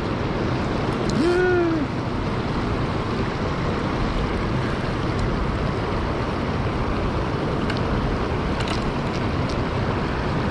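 Steady rush of river water pouring and churning over a concrete bank, with no pauses.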